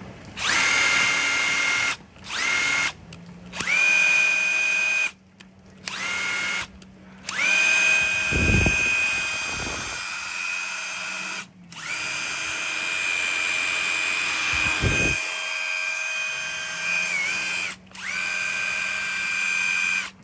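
Bosch GDX18V-1600 cordless 2-in-1 impact driver/wrench with a brushed motor, run with no load: its motor and gear whine starts and stops with about seven trigger pulls, some short and some several seconds long, each rising a little in pitch as it spins up. Two dull knocks come partway through.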